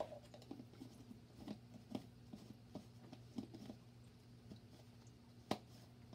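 Faint steady low hum from the aquarium's running equipment, with scattered soft clicks and one sharper click about five and a half seconds in.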